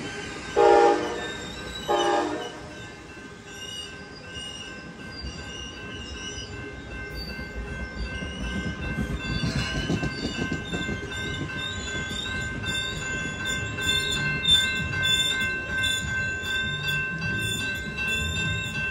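Two short train horn blasts, the second about a second after the first, over the rumble of a passing Coaster commuter train. A grade-crossing warning bell rings steadily throughout.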